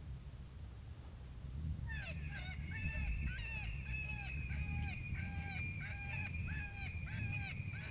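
Predator call playing a repeated animal distress cry, about two squalling cries a second, starting about two seconds in, over a low rumble.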